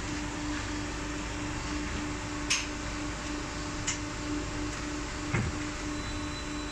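Steady running noise of block-making plant machinery, with a hum that pulses on and off evenly and three short clicks spread through the middle.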